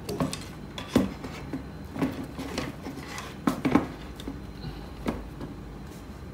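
Adidas Terrex Folgian Hiker shoes being handled and set down on a slatted wooden board: irregular knocks of the rubber soles against the wood, with rubbing of fabric and laces. The loudest knock comes about a second in, and a quick cluster of knocks falls just past the middle.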